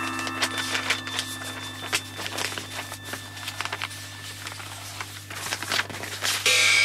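Scattered small clicks and knocks over a steady low hum. About six and a half seconds in, a louder bell-like ringing tone sets in.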